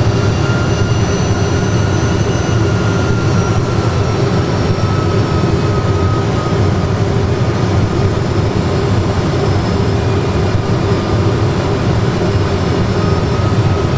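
Simulated Airbus A320 cockpit sound in a full flight simulator on approach: a steady low rumble of engine and airflow noise, with faint thin whines that slowly sink in pitch.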